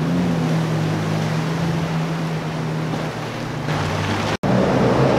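Jet ski engines running at speed across the water, with a steady engine drone and the hiss of spray; the sound cuts off abruptly about four seconds in and switches to a second jet ski passing.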